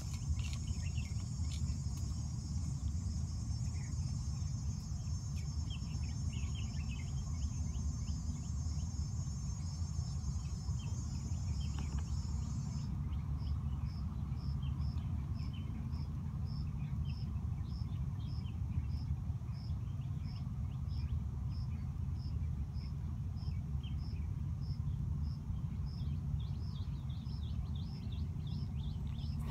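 Insects outdoors: a dense, high, steady buzzing chorus that cuts off abruptly about 13 seconds in, after which a single insect keeps chirping evenly about twice a second. Beneath it runs a steady low rumble.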